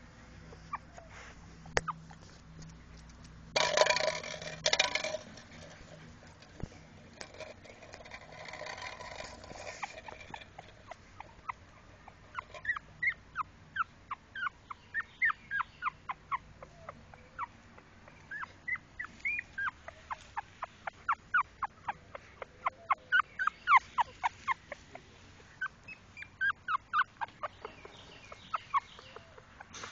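Newborn puppies squeaking and crying: runs of short, high squeaks that fall in pitch, several a second. There is a brief burst of rustling noise about four seconds in.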